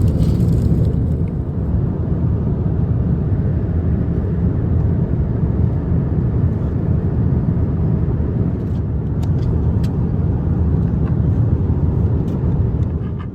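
Steady low rumble of a moving vehicle, even and unchanging, with a few faint ticks about nine seconds in.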